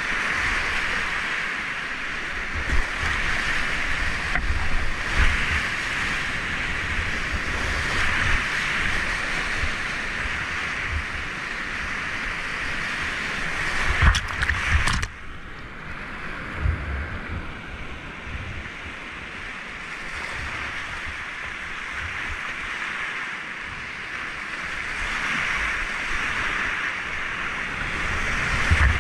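Whitewater rushing and churning around a kayak running a steep creek rapid, with low wind rumble on the microphone. About halfway through there is a brief loud crash of water, after which the rush is quieter and duller for several seconds before building again.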